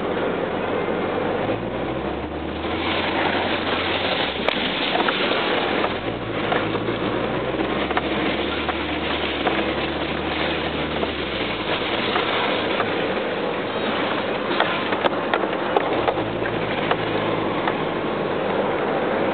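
Rear-wheel-drive truck driving over a rough dirt road, heard from inside the cab: a low engine note that steps up about two seconds in and drops back near twelve seconds, under a steady rumble of tyres and rattling cab, with scattered knocks from bumps.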